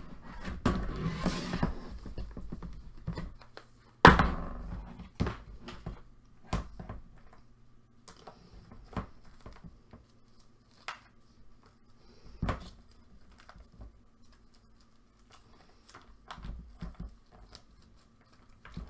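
Small items being taken out of their packaging by hand: rustling, then a sharp knock about four seconds in and scattered light clicks and taps, over a faint steady hum.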